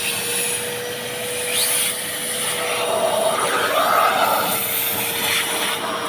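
Vacuum cleaner running with a steady whine while being used to clean a car, its suction noise shifting in pitch as the nozzle is moved about.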